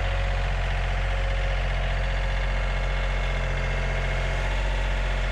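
Engine running steadily at a constant speed, an even low drone with no change in pitch.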